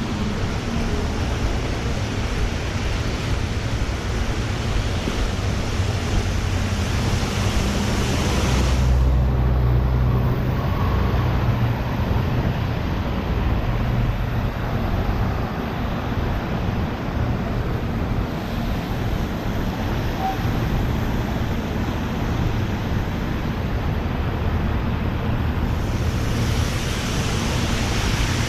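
Steady rushing wind and road noise on a bicycle-mounted camera while riding, with a fluctuating low rumble. The sound turns duller about nine seconds in and brightens again near the end.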